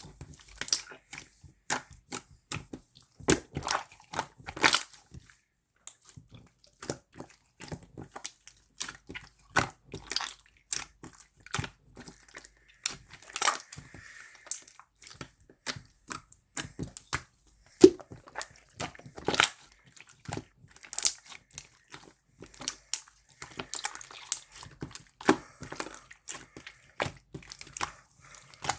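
Slime squished and stretched by hand, giving an irregular stream of sticky pops and crackles.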